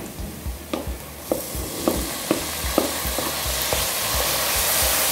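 Diced tomato dropped into onions and spices frying in hot lard in a stainless steel pot, sizzling from about a second in and growing steadily louder as the wet tomato hits the fat. A wooden spoon stirs and knocks against the pot several times through the first few seconds.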